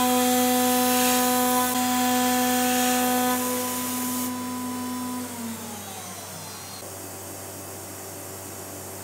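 CNC router spindle with a 12 mm insert mill running at 15,000 rpm, a steady whine, with the oil mist coolant hissing over it. The hiss stops about four seconds in. About a second later the spindle winds down, its whine falling in pitch and fading.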